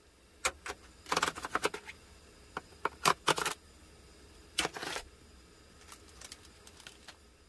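Thin clear plastic meat tray crackling and clicking as it is handled and opened, with tongs picking at the marinated bulgogi inside. A run of sharp clicks and crinkles in short clusters, loudest in the first half, thinning to a few faint clicks near the end.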